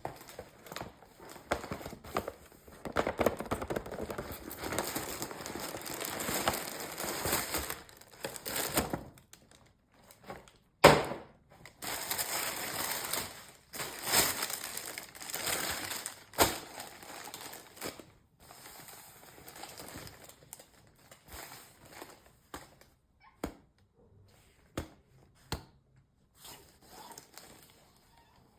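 Packaging being unwrapped by hand: long stretches of crinkling and rustling, broken by one sharp loud snap about eleven seconds in, then sparser light rustles and taps.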